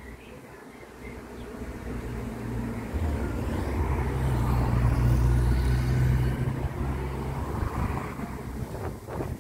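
A motor vehicle passing close by: its engine hum builds over a few seconds, peaks about five seconds in, then fades.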